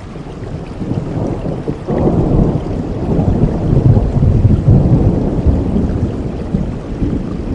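Thunderstorm: steady rain with a roll of thunder that breaks in about two seconds in, swells to a deep rumble, and fades back under the rain near the end.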